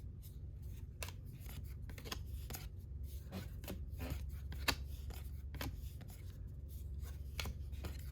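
Baseball cards being flipped through one at a time by hand, making irregular light snaps and slides roughly every half second, over a low steady hum.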